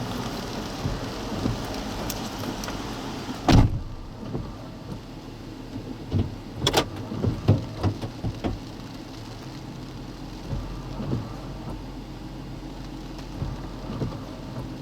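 Rain and wind hiss heard from inside a car with a low steady hum underneath. A single heavy thud comes about three and a half seconds in, after which the hiss is more muffled, followed a few seconds later by a run of light clicks and knocks inside the cabin.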